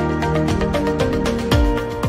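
Background music with a steady beat and a deep bass hit about one and a half seconds in.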